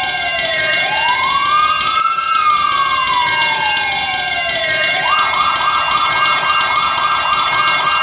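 Fire alarm siren sound effect: an electronic siren wail that slowly sweeps down and back up in pitch, then switches to a fast warbling yelp about five seconds in. It plays over a steady high-pitched tone.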